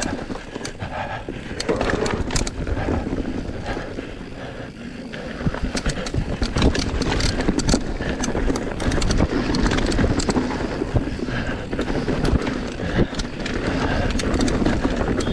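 Electric mountain bike descending a dirt forest trail at speed: a steady rush of tyres on dirt and leaves, with the bike's frame, chain and suspension rattling and knocking sharply over the bumps. It eases off briefly about four seconds in, then picks up again.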